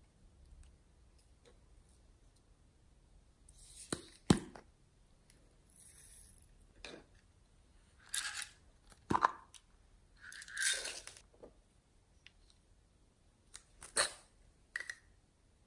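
Small plastic containers being handled, with scattered sharp clicks and short scraping rustles. The loudest click comes about four seconds in.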